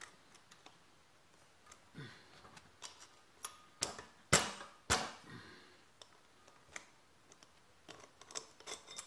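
Scattered light metallic clicks and ticks as hands work the drive chain onto a mini bike's rear sprocket, with three sharper knocks around the middle.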